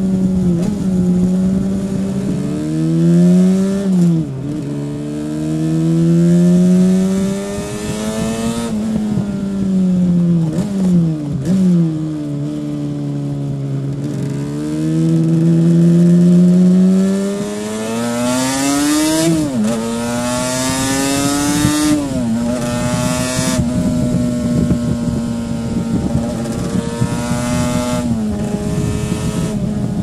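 Onboard sound of a 1984 Yamaha RD500's liquid-cooled 499 cc V4 two-stroke engine on the road. It pulls through the gears, its pitch climbing and then dropping sharply at each shift, eases off once, and holds a steady cruise through the last several seconds.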